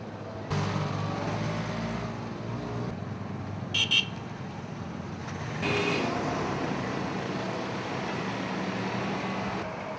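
Street traffic: a motor vehicle's engine running close by, with two quick horn beeps about four seconds in.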